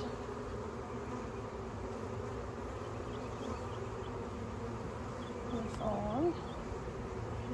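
Steady buzzing hum of a large mass of honeybees from a freshly installed package colony.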